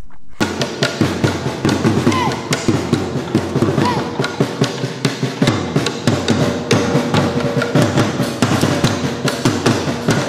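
Music with fast, dense drumming and percussion that starts suddenly about half a second in.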